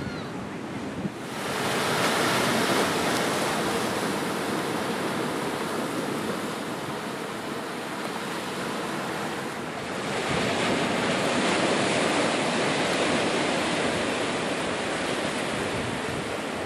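Steady rush of ocean surf washing over a rocky lava shoreline, stepping up in level about a second in and again about ten seconds in.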